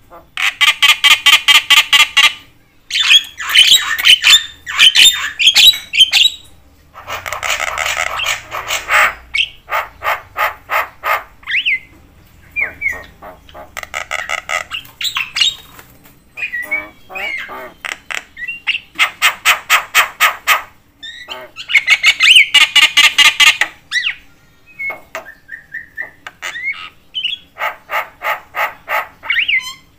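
Javan myna (jalak kebo) calling almost without pause: loud phrases of rapid, harsh, chattering notes, each phrase a second or more long, with a few short whistled notes slipped in between.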